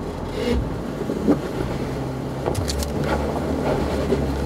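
Jeep Wrangler engine running under load as the Jeep is driven up a rocky slope, its low drone growing stronger about half a second in and again a second later. A few short, sharp knocks are heard as the tires work over loose rock.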